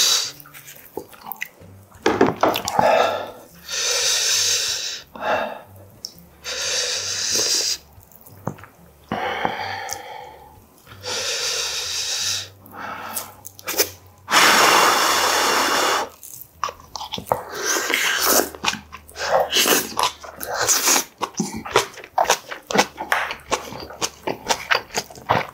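Close-miked eating of braised kimchi with pork back ribs: wet chewing and lip smacking with many small clicks. This is broken several times by loud, one-to-two-second rushes of breath puffed out through the mouth. The longest comes a little past halfway, and there is a short hummed note near the middle.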